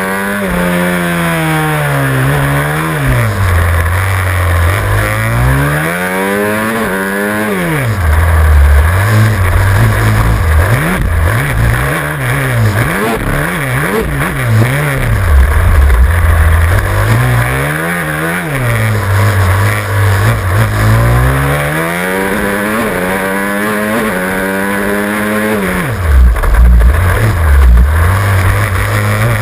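Supermoto race motorcycle engine, heard from a camera mounted on the bike, revving hard. Its pitch climbs through the gears and drops sharply on the way into each corner, over and over, with wind rush behind it.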